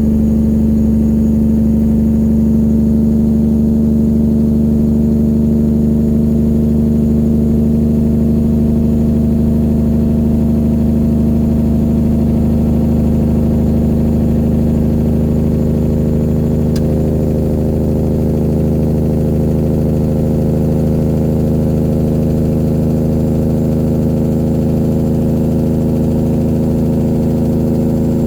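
A 1999 Peterbilt 379's straight-piped diesel engine running steadily at a near-constant pitch, heard from the truck.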